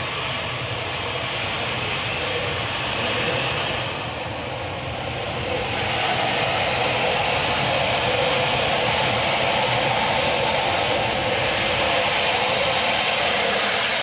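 Steady jet-like roar of natural gas burning as it escapes from a ruptured pipe, heard from inside a passing car; it grows louder about six seconds in as the car nears the flames.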